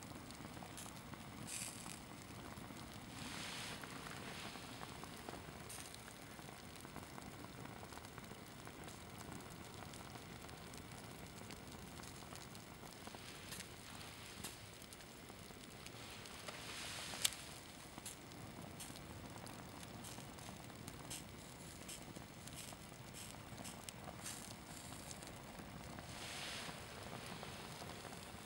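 Small flames on a hanging Adidas synthetic sports shirt, faintly crackling and sizzling as the fabric melts, over a soft hiss, with a sharp click a little past halfway.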